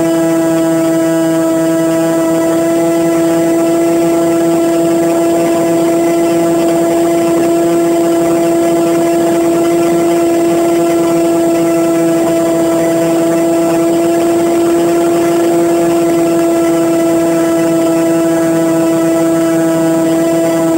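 Zagi flying wing's motor and propeller running at a steady throttle: a loud, even whine with a fixed pitch, picked up close by the phone riding on the plane.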